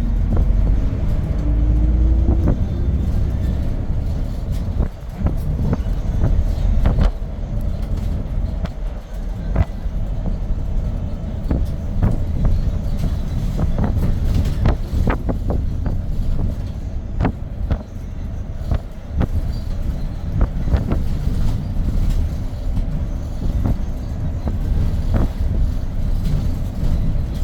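Hyundai New Super Aerocity city bus's CNG engine running as the bus drives along, heard from inside the cabin: a deep low rumble with frequent short clicks and knocks. In the first few seconds the engine note rises as the bus picks up speed.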